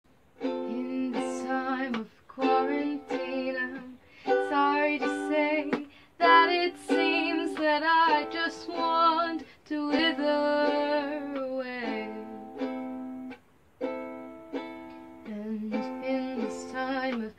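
A woman singing a soprano solo to her own ukulele, in sung phrases with short breaks between them.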